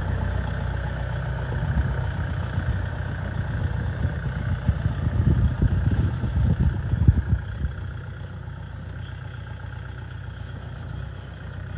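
Kubota L4508DI tractor's diesel engine running as the tractor drives off, with irregular low thumps between about four and seven and a half seconds in, the sound dropping somewhat after about eight seconds as it moves away.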